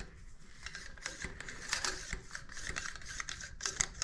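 Rifle cleaning rod with a small brush worked in and out of a lathe carriage's oil passage, making quick, irregular scraping and clicking. The brush is breaking up grease sludge clogging the passage.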